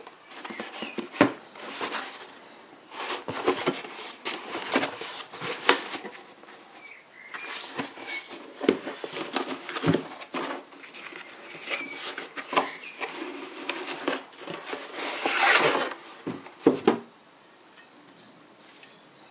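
Cardboard brake-rotor box being handled and opened: scraping, rustling and sharp knocks as it is tilted and the rotor is slid out, falling quiet a couple of seconds before the end.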